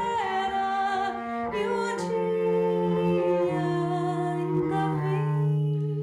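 A woman sings a slow melody in long held notes over a bowed double bass that sustains low notes, changing pitch every second or two.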